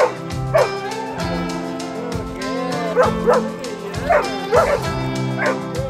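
A love song playing, with a dog repeatedly yipping and barking over it in short, high calls.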